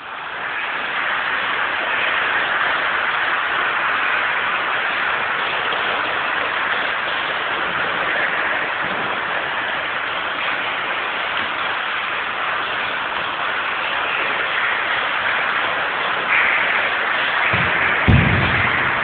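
Loud, steady hiss like static, even throughout, with a couple of brief low bumps near the end.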